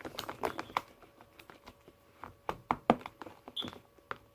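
Sticky glue slime being stirred in a container with a mixing tool: irregular wet clicks and squelches, coming thickest a little past the middle, with one short high squeak.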